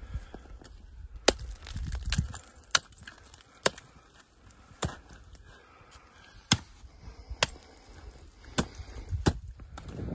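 Ice axe picks being swung into hard snow and ice on a winter gully climb. There are about eight sharp strikes at an uneven pace of roughly one a second.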